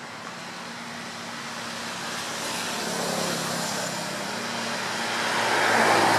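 A motor vehicle passing, its noise slowly swelling to a peak near the end, over a faint low hum.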